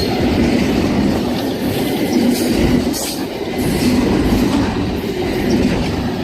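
Amtrak Auto Train rail cars rolling past at speed: a steady loud rumble, with the wheels clacking over rail joints again and again.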